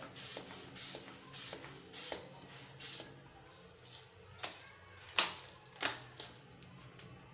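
A homemade PVC pump-action alcohol-powered toy gun being worked: a run of short, sharp hissing strokes, about one every half second at first, then three louder ones near the end.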